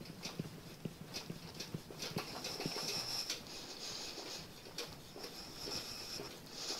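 Locking pliers gripping a seized, broken bolt in a cast-iron Ford flathead V8 block, rocked back and forth to free it: a run of irregular small metal clicks with spells of scratchy rasping.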